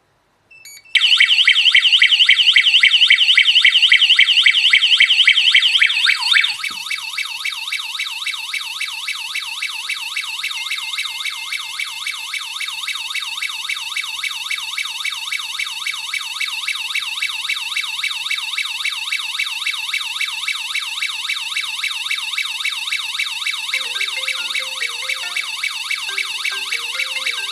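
Water leak detector's built-in alarm siren sounding a loud, rapid warbling tone, the signal that its probes are sensing water. About six seconds in it drops noticeably quieter and keeps sounding.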